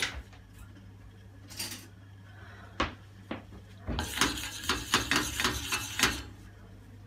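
Metal spoon stirring melting sugar caramel in a stainless steel pot, clinking and scraping against the pot. A few single clinks come first, then from about four seconds in a quick run of knocks, about five a second, for two seconds.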